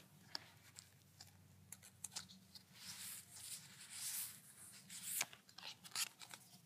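Magic: The Gathering trading cards being handled and laid down by hand: scattered sharp clicks, and a stretch of soft rustling about three seconds in.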